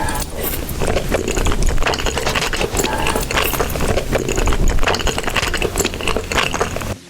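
Close-miked chewing of crunchy food: a dense run of irregular crunches and crackles.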